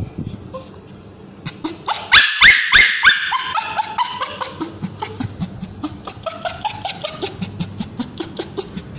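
Male Bichon Frise screaming in distress as ointment is worked into its scabies-sore tail. Shrill cries, each falling in pitch, peak loudest about two seconds in. They then go on as shorter, quicker yelps, about four a second.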